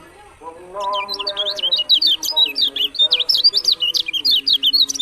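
Kecial kuning (a white-eye) singing a fast, continuous run of high, sweeping chirps starting about a second in. Underneath is a lower, drawn-out chanting voice.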